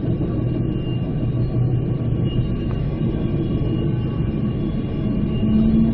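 Spirit of the Outback passenger train running along the line, heard from inside a carriage: a steady low rumble with a few faint steady tones.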